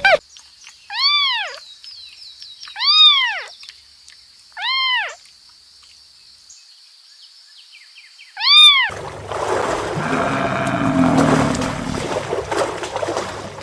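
A kitten meowing four times, short rising-then-falling mews about two seconds apart, over a steady high thin whine. After the last mew, about nine seconds in, a rough, noisy sound takes over.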